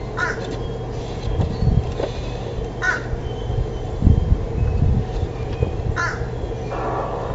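Short, harsh bird calls, about three spaced a few seconds apart, over a steady low hum with some low rumbling.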